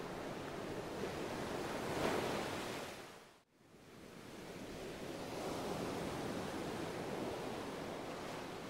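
A steady rushing noise that swells about two seconds in, fades out to a brief silence about three and a half seconds in, and swells back.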